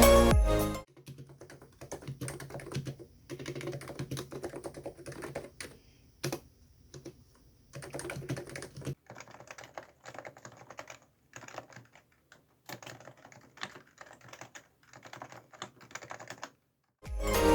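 Computer keyboard being typed on in quick runs of keystrokes with short pauses between them. The tail of background music cuts off within the first second.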